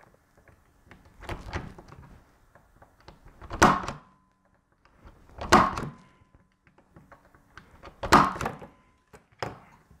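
Impact punch-down tool snapping as it seats and trims twisted-pair wires into the terminals of a Cat6 patch panel: three loud snaps about two seconds apart, some followed by a short ringing tone, with softer clicks of the tool and wires between.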